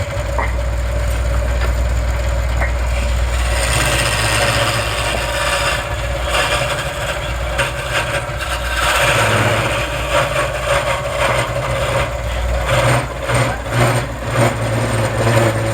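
Wood lathe running with a low motor hum, a turning tool cutting the spinning wood with a rough, varying scraping hiss. The machine comes on abruptly at the start.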